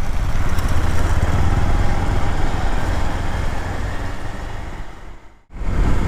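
Motorcycle running while being ridden: a steady engine rumble with road and wind noise. It fades and drops almost to silence about five and a half seconds in, then picks up again.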